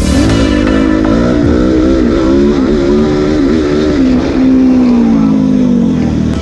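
Honda CRF dirt bike's single-cylinder four-stroke engine being ridden, its note rising and falling repeatedly with the throttle, then one longer note sliding slowly down as the throttle is rolled off near the end.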